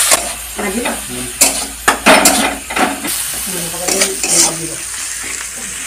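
Metal spatula stirring and scraping freshly added chopped tomatoes and fried onions around an aluminium kadai, in irregular sharp scrapes over a steady sizzle of the spiced oil on the gas flame.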